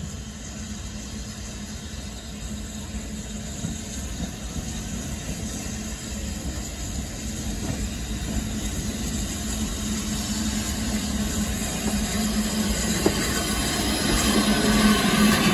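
BR Standard Class 9F steam locomotive 92214 'City of Leicester' drawing its train in along the platform, growing steadily louder as it approaches, over a steady low hum. A hiss of steam rises near the end as the engine comes alongside.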